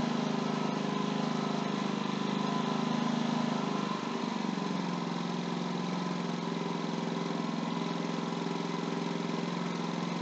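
Ryobi 4000-watt inverter generator running steadily; about four seconds in, its engine slows and the note drops as the auto idle is switched on, and it settles into a lower, quieter idle.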